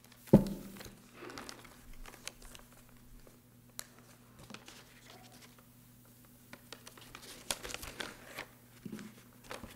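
A sharp thump about a third of a second in, then paper being unfolded and handled close to a microphone, rustling and crinkling on and off, busiest near the end. A faint steady electrical hum sits underneath.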